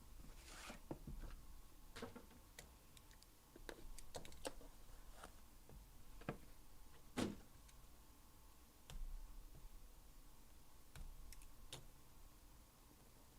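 Faint scattered clicks and taps of sports cards and their plastic holders being handled, with one sharper click about seven seconds in.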